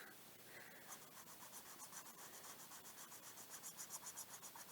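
Faint pen scratching on paper: a quick, even run of small writing strokes, a little louder in the second half.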